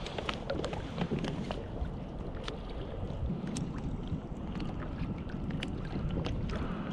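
Wind rumbling on the microphone over water lapping against a moving kayak's hull, with many small, irregular splashes and ticks.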